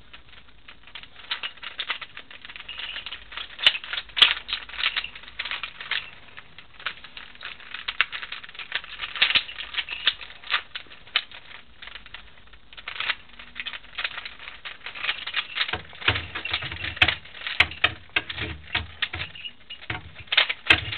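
Plastic pieces of a 3x5x7 twisty puzzle, a mod built from joined extended 3x3x5 and 3x4x5 Rubik's cubes, clicking and rattling in quick irregular runs as its layers are turned. Low dull knocks join in near the end.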